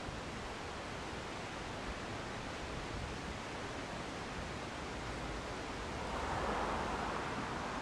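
Steady outdoor background hiss with no engine running, swelling briefly about six seconds in.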